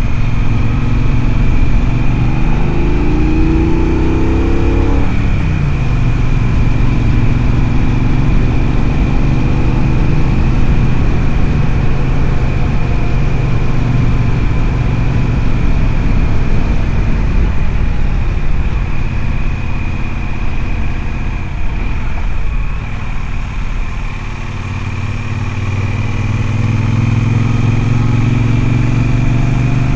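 Triumph Speedmaster's parallel-twin engine running on the move. The revs climb a couple of seconds in and drop back about five seconds in, then hold steady. The throttle eases off and the engine goes quieter around two-thirds of the way through, then the revs pick up again near the end.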